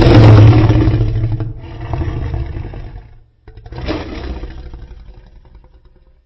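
Custom Godzillasaurus monster roar sound effect, layered from animal and dinosaur roars: a loud, deep roar trailing into a growl, then after a short break a second roar that fades away.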